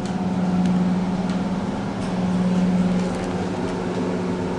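Steady mechanical hum heard inside the car of an old FIAM hydraulic lift modernised by Schindler, with a few faint ticks.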